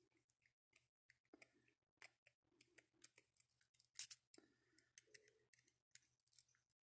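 Faint, scattered clicks and ticks of a small screwdriver turning a T8 Torx screw out of a folding knife's handle, with one louder click about four seconds in. The screw is held with thread locker.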